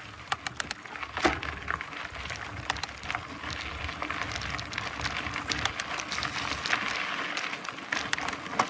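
Mountain bike rolling over bumpy ground: a steady rushing tyre noise broken by many irregular clicks and rattles from the bike.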